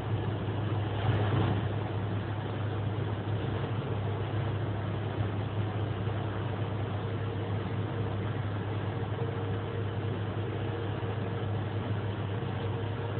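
Steady running noise in an SBB train's driver's cab: a constant low hum over an even rumble, with a brief louder rush about a second in and a faint higher tone coming in partway through.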